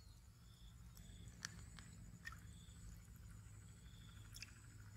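Near silence with faint outdoor ambience: a few soft clicks and knocks as bowls are handled, and several short, faint high chirps.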